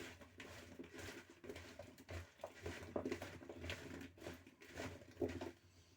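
Cut potatoes being tossed and mixed with sunflower oil, pressed garlic and spices: irregular soft, wet knocks and rustling.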